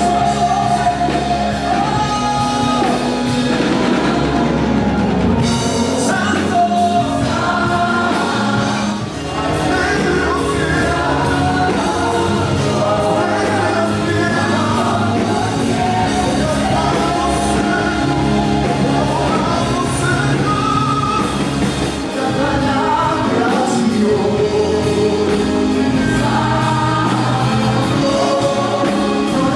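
Gospel worship music with a choir singing over a band.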